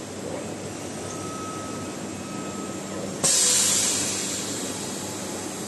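Automatic TIG (argon arc) welder working a 304 stainless steel corner seam: a steady hiss with a faint hum. About three seconds in, a sudden loud burst of high hissing starts and fades away over a second or so.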